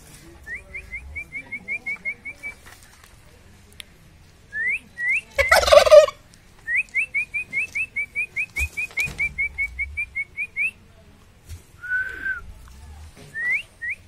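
A person whistles in quick runs of short rising chirps, and a domestic turkey tom answers with one loud gobble about five and a half seconds in. The whistling then carries on, with one held whistle near the end. Turkey toms call back like this when whistled at.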